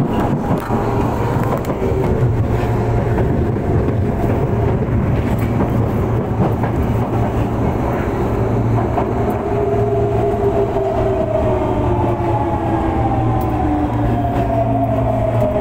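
Osaka Metro 23 series subway car running, heard from inside the car by the door: a loud, steady rumble of wheels and running gear. From about halfway through, the traction motors' whine slides slowly down in pitch as the train slows.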